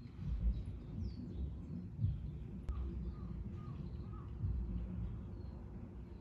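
Faint chirping of small birds, with a quick run of four short calls about three seconds in, over a steady low rumble of outdoor background noise. A single sharp click comes near the middle.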